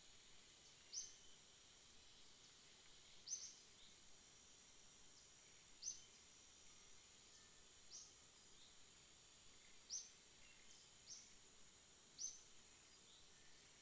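Faint outdoor ambience: a short, high chirp repeats about every two seconds over a steady, high-pitched hum.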